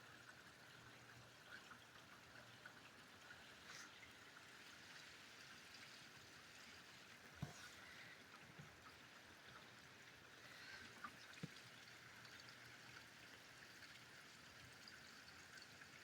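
Faint, steady hiss of falling rain, with a few soft ticks.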